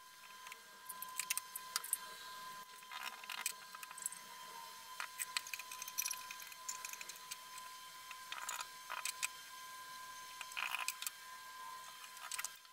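Light clicks and taps of wooden dowels and pliers being handled against plywood panels, scattered irregularly, over a steady high tone.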